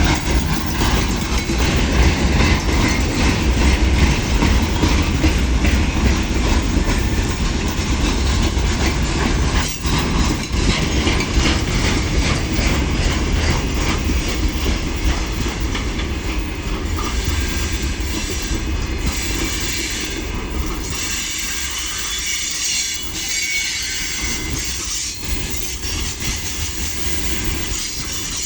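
A mixed freight train rolls past close by, its wagon wheels clattering over the rail joints and squealing, loud enough to overload the microphone. A heavy low rumble eases about two-thirds of the way through, and the high squealing grows stronger in the second half.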